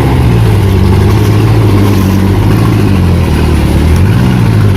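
A vehicle engine running steadily at low revs, its pitch shifting slightly a little past halfway.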